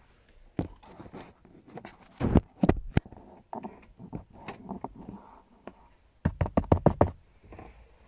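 Handling noise of a camera being moved and set in place: a string of sharp knocks and taps with rubbing between them, in two close clusters about two and a half and about six and a half seconds in.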